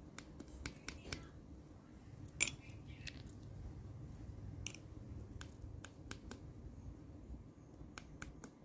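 Scattered sharp clicks and light taps as small plastic vanilla tubes are handled and tapped over a stainless-steel bowl to empty them, two of them louder than the rest.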